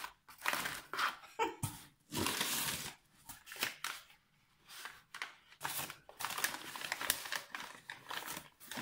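Packing paper crinkling and rustling by hand as a small wrapped figurine is unwrapped, in a series of short rustles with brief pauses, more continuous over the last few seconds.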